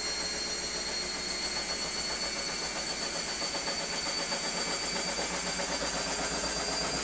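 Indesit IWC6105 washing machine running with its drum turning, a steady loud rumble with a constant high-pitched whine over it. The uploader found the drum bearings gone.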